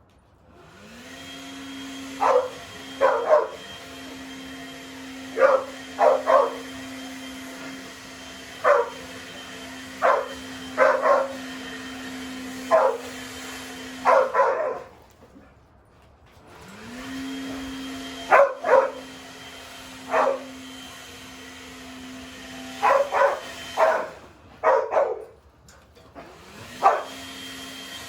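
Dogs barking in short sharp bursts, several times, over the steady hum of an electric motor that winds up, runs, cuts off, and starts up again twice.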